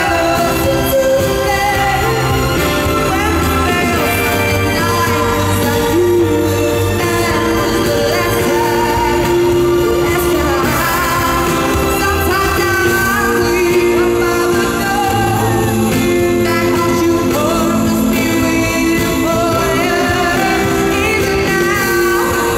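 A woman singing a pop ballad live with full band accompaniment, amplified through an arena's sound system.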